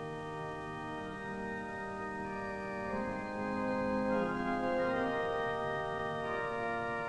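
Background organ music: held chords that move to a new chord every second or so.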